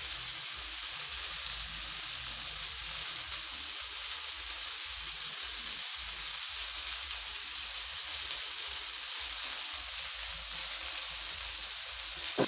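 Omena (small dried lake fish) sizzling steadily as they fry in the pan, with one short knock near the end.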